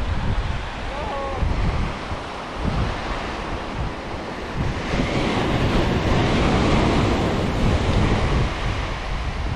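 Surf breaking and washing on a sandy beach, swelling louder about halfway through, with wind buffeting the microphone as a low rumble.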